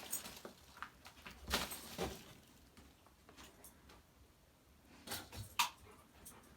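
Faint, scattered knocks and scuffs in a small room, with sharper knocks about a second and a half in, at two seconds, and twice near five and a half seconds.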